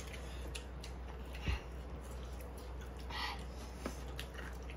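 Eating at a table: chewing and light clicks of chopsticks on bowls, with a soft thump about a second and a half in, over a steady low hum.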